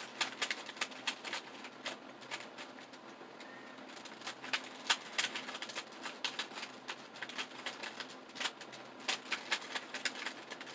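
A 2x2 Rubik's cube being turned by hand during a solve: a run of irregular plastic clicks and clacks as its layers snap round, often several a second.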